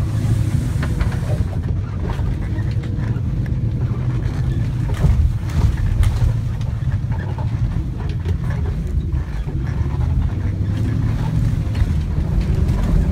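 Vehicle engine running steadily, heard from inside the cabin while driving over a rough, muddy dirt track, with scattered knocks and rattles from the bumps.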